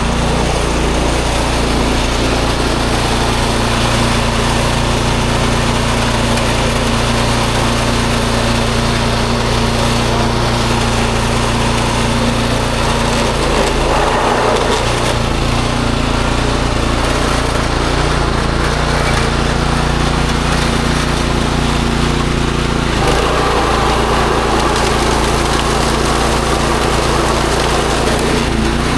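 Small gasoline snowblower engine running steadily under load, its note shifting about halfway through and again later on.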